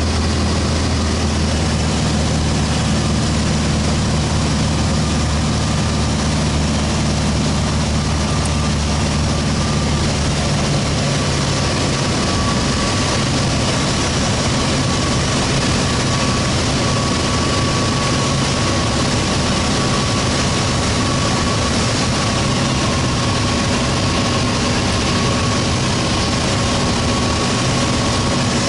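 Single-engine light airplane's engine and propeller droning steadily, heard inside the cockpit. About ten seconds in the deep hum of the engine note drops away, leaving a higher, steady drone.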